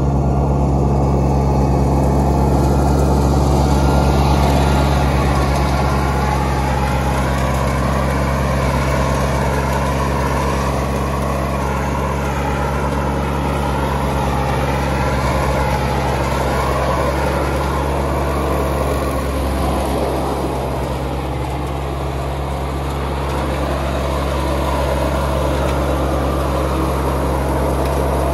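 John Deere F935 front mower's three-cylinder Yanmar diesel engine running steadily under load while it mows grass. The level dips slightly about two-thirds of the way through.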